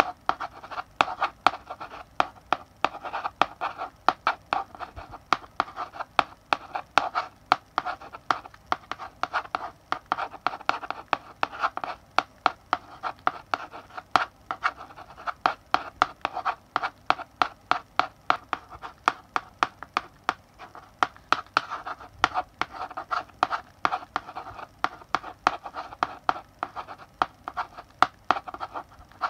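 Chalk writing on a blackboard: scratchy strokes broken by sharp taps, several a second, as the chalk strikes the board, going on without pause.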